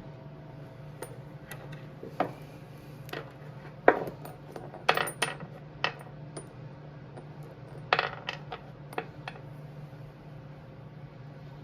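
Metal hand tools and bolts clinking and tapping against each other and the engine in a dozen or so sharp, irregularly spaced clicks. A steady low hum runs underneath.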